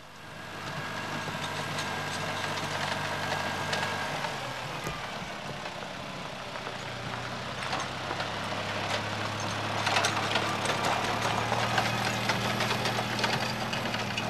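Small farm tractor's engine running steadily as it is driven, its pitch shifting twice along the way, with crackling above it that grows louder in the second half.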